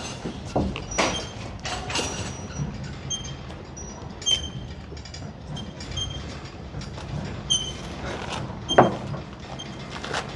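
Metal knocks, clanks and short high squeaks from a truck's rear bed and its load being worked, over a steady low mechanical hum. One louder knock comes near the end.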